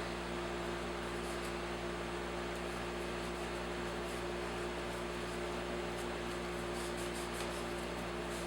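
Steady low electrical hum with a constant background noise, and a few faint light clicks near the end.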